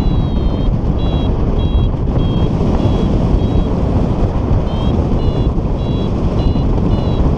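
Paraglider variometer beeping in short high tones, about two a second, pausing briefly about four seconds in; the beeps signal that the glider is climbing in lift. Heavy wind rush on the microphone under the beeps.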